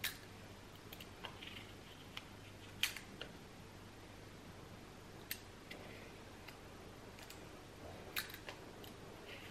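Vegetable peeler scraping the rind off chunks of butternut squash: faint, short scrapes with a few sharp clicks spread through, the sharpest at the start and about three seconds in.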